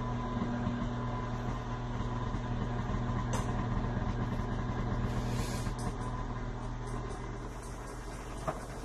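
KitchenAid stand mixer's motor running steadily, turning the pasta roller attachment as a sheet of dough feeds through the rollers. A click a little over three seconds in and another near the end.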